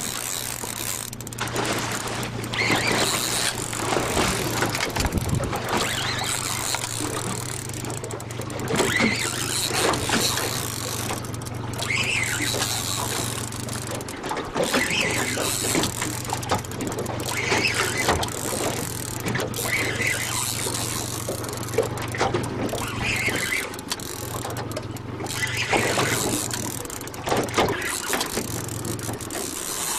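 Boat engine running with a steady low hum under wind and water noise; the hum drops out briefly a few times.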